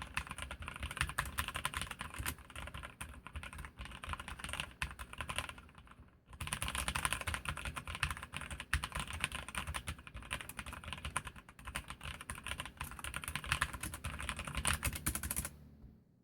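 Fast typing on an Archon Type B87 mechanical keyboard with Kailh Red linear switches: a dense, continuous run of keystroke clacks. There is a short pause about six seconds in, then the typing resumes and stops shortly before the end.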